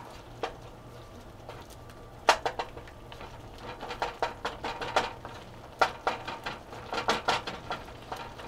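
Wooden spoon stirring ground turkey and sweet potato in a skillet, scraping and tapping against the pan in short runs of quick clicks. The first run comes about two seconds in, and the stirring grows busier from about four seconds on.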